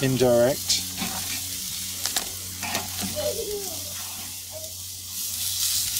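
Rump steaks sizzling on a hot charcoal kamado grill grate as metal tongs lift and move them, with a few sharp clicks of the tongs against the steel grate.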